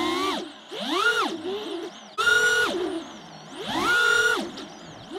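6S 5-inch FPV quadcopter's brushless motors and propellers whining, the pitch rising and falling with the throttle. Three throttle punches, about a second in, at about two seconds and near four seconds, each climbing quickly to a high whine, holding briefly, then dropping back.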